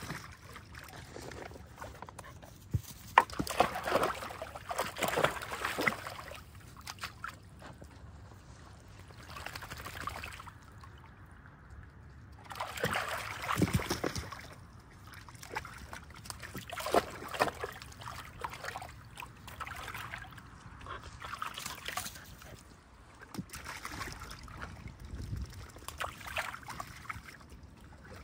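A dog splashing and pawing at the water in a shallow plastic kiddie pool, sloshing and splashing in irregular bursts with quieter gaps between.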